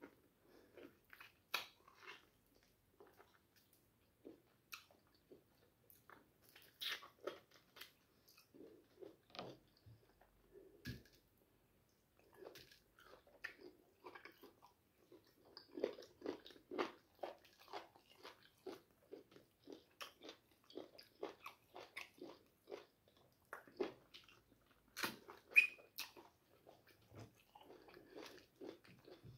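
A person chewing and biting meat off small bones, with crisp crunches. The bites and chews come irregularly, busier in the second half, with the loudest crunch near the end.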